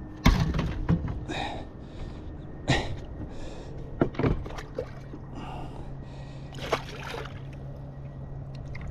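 A man breathing hard in repeated puffs while a landed tarpon splashes in the water, with a sudden loud knock just after the start.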